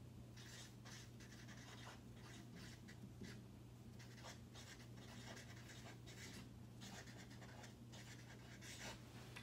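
Felt-tip marker writing on chart paper: faint, short, irregular strokes as words are written out.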